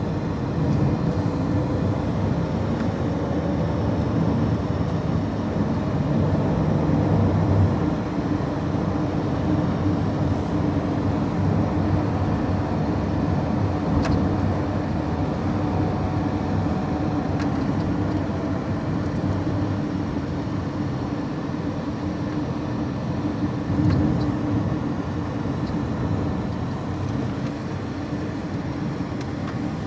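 A car driving along at steady speed, heard from inside the cabin: continuous engine and tyre rumble, with the engine note shifting a little now and then.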